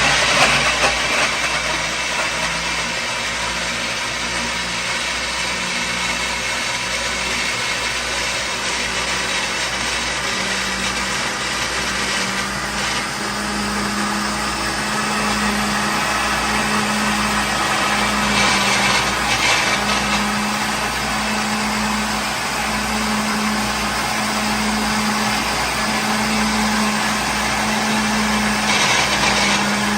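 Electric kitchen blender running steadily, its motor whirring with a pulsing low hum; three times the whir briefly turns brighter and harsher.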